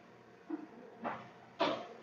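Ramen noodle machine running with a steady low hum as dough is fed through its rollers, with three short clunks about half a second apart, the last the loudest.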